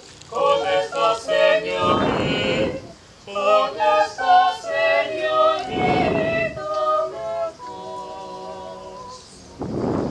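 A group of voices singing together without instruments, with a short rush of noise about every four seconds.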